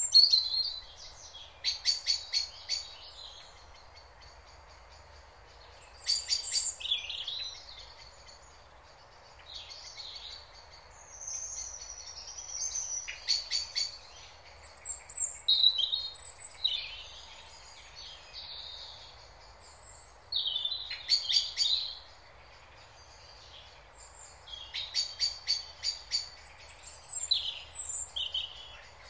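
Songbirds singing in bouts every few seconds: high chirps and whistles mixed with fast trills of rapidly repeated notes.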